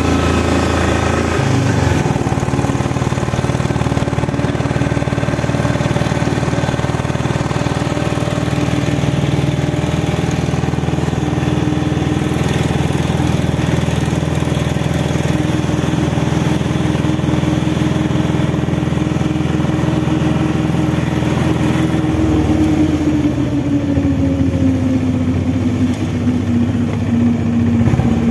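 Motorcycle engine running steadily under way, heard from on board, its pitch falling over the last few seconds as it slows.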